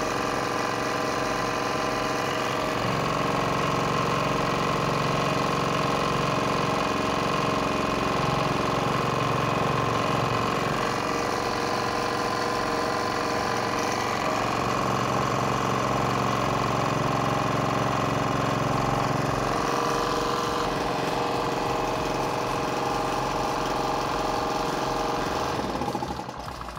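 Small single-cylinder gasoline generator (SV2200, 1.5 kW single-phase) running steadily after a capacitor replacement, working normally with its power output restored. A low hum in its note comes up a few seconds in and drops back about twenty seconds in.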